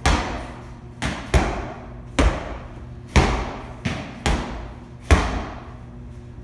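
Medicine balls slammed down onto a rubber gym floor by several people. There are about eight loud, heavy thuds at uneven intervals, some close together, each followed by a short echo.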